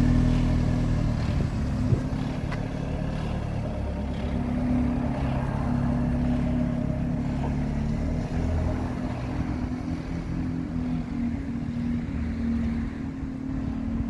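Single-deck bus's diesel engine pulling away from the stop, its low drone easing down over the first couple of seconds as it moves off. It then runs on as a steady engine hum, with one short click about two seconds in.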